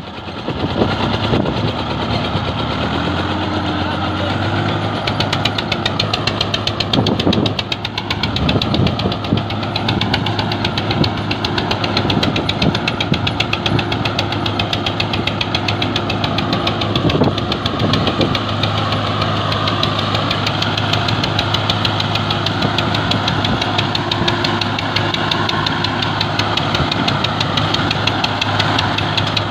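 Swaraj 855 tractor's three-cylinder diesel engine running under load while towing a heavy borewell drilling rig, its pitch rising a couple of seconds in and then holding steady. A few brief low knocks are heard along the way.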